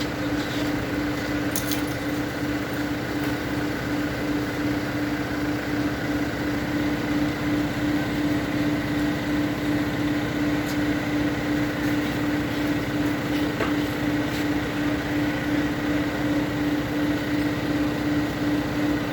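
Electric motor of a hand-held power tool running steadily with a strong, even hum while stains are worked off a part, its loudness rising and falling slightly about once a second.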